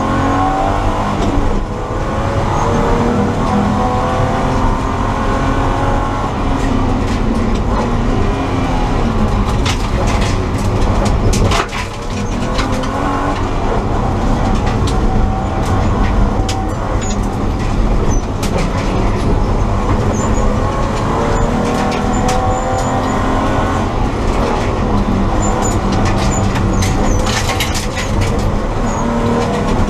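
BMW E30 325i's 2.5-litre straight-six engine heard from inside the caged cabin under hard driving, its revs climbing and dropping again and again, with a brief lift in loudness about twelve seconds in. Sharp knocks and rattles come now and then over the engine.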